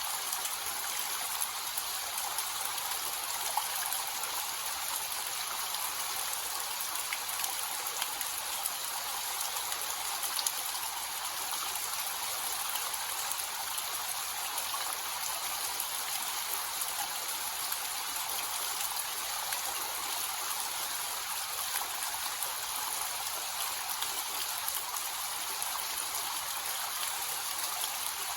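Small waterfall with a light, gentle flow: water falling and splashing in a steady hiss, with no deep rumble.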